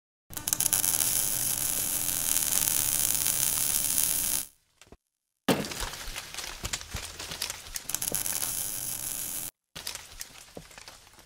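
Logo intro sound effect: a steady crackling hiss that cuts off about four and a half seconds in, then a sudden hit followed by more crackling and breaking-debris sounds, fading out near the end.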